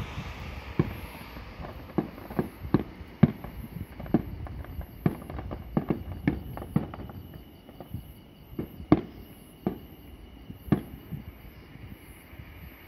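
Distant aerial fireworks bursting: an irregular run of sharp bangs and pops, several a second at first, thinning to a few scattered reports toward the end.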